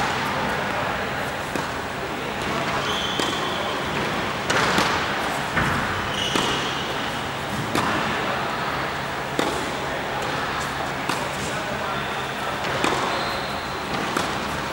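Tennis ball struck by a racket and bouncing on an indoor hard court, a sharp hit every second or two, echoing in the large hall over a steady hum.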